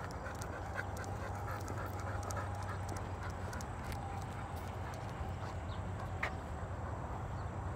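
A dog panting steadily, with a brief high chirp about six seconds in.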